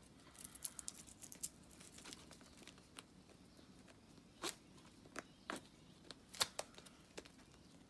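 Faint, scattered crackles and rustles of a diamond-painting canvas's plastic cover and tape as the rolled canvas is handled and worked free of its tape, with a few sharper crackles in the second half.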